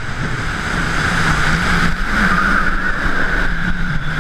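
Goliath steel roller coaster train plunging down its first drop: rushing wind over the ride-mounted action camera's microphone and the wheels running on the track, growing louder over the first second as the train picks up speed.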